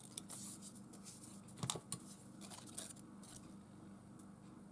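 Scissors cutting small pieces of paper in half: a few faint, scattered snips.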